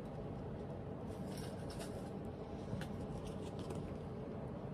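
Faint rustling and light ticks of paper being handled, folded paper slips in a ceramic mug and a printed paper bookmark, over steady low room noise.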